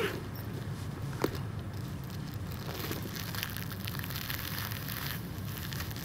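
Steady low rumble of distant city traffic, with a sharp click about a second in and a soft crackly hiss for a couple of seconds in the middle.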